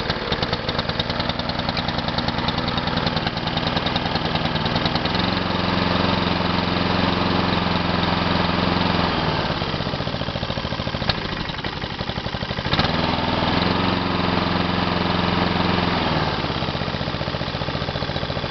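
Honda GCV135 overhead-cam petrol engine on a push lawn mower running unevenly after a start on choke. Its speed picks up and holds, sags around the middle with a couple of sharp pops, then picks up again and drops back near the end.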